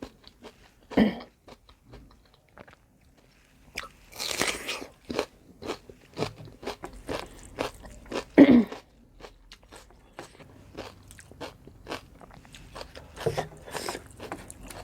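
Close-miked eating: crunchy bites and chewing with many small wet mouth clicks, with a few louder crunches about a second in, near the middle and about eight seconds in. The crunch fits raw onion eaten with pork curry and rice.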